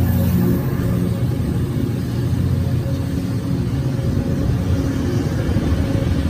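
Metrolink F59PHR diesel locomotive's engine running steadily under power, a deep pitched throb with a steady higher hum above it.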